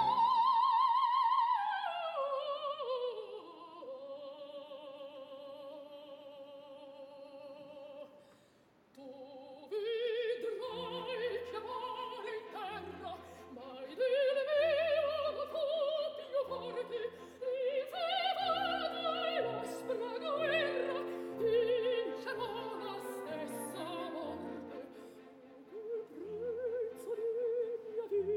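Operatic soprano singing with a wide vibrato over orchestral accompaniment. A long note slides down and is held, there is a brief pause about eight seconds in, and then phrases follow over short, regular bass notes from the orchestra.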